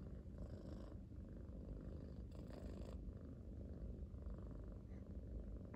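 Tabby kitten purring steadily close to the microphone, a low pulsing rumble, with two brief rustling noises over it, about half a second and two and a half seconds in.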